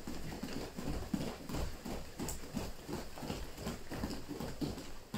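Bare feet landing on a padded dojo mat in a quick, steady rhythm of about three steps a second, during alternating high-knee raises on the spot.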